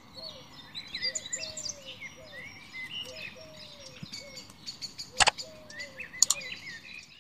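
Birds chirping and calling, with many short, quick notes over one another. Two sharp clicks, about five and six seconds in, stand out as the loudest sounds.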